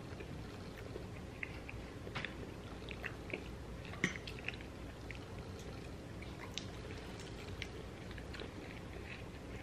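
Quiet chewing, with scattered small clicks of forks against plates, as two people eat pieces of bean and cheese burrito. A slightly sharper click comes about four seconds in.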